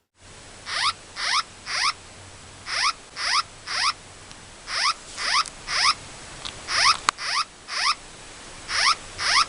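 Electronic emergency-alert signal: groups of three quick, rising chirps, repeating about every two seconds over a steady hiss.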